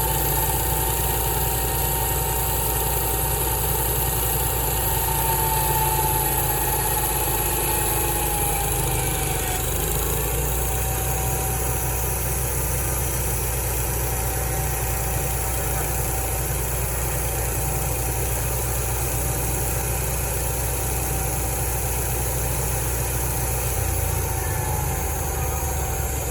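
Sawmill engine running steadily at idle, with a steady whine above it that dips slightly in pitch about ten seconds in.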